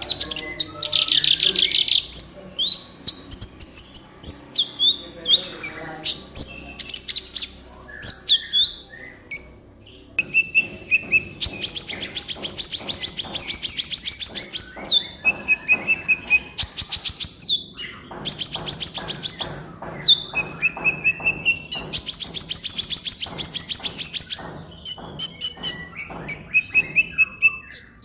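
Sunbird ('kolibri ninja') song: a busy run of sharp high chirps and quick down-slurred notes, broken by three long, very rapid high trills, about a third, two-thirds and four-fifths of the way through.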